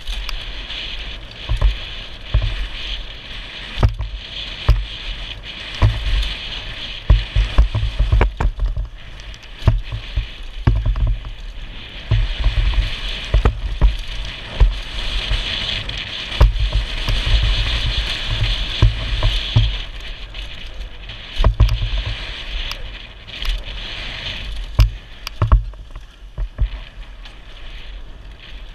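Wind rushing over a helmet-mounted camera's microphone and mountain bike tyres rolling fast on packed dirt, with frequent irregular thumps and knocks as the bike and mount jolt over bumps on the trail. The rush swells louder around the middle.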